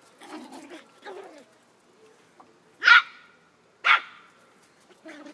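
Small puppy barking: two sharp, high yaps about a second apart, after a few softer, lower sounds in the first second or so.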